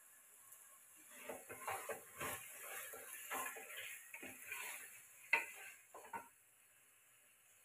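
Wooden spatula stirring and scraping a thick, sizzling onion-tomato masala in a pressure cooker pot. A run of uneven scrapes starts about a second in, one sharp knock of the spatula against the pot comes near five and a half seconds, and the stirring stops about six seconds in.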